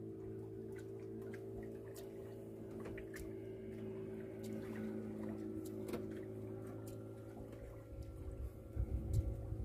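Boat engine running steadily at an even pitch, with scattered light clicks. About eight seconds in, an uneven low rumble starts.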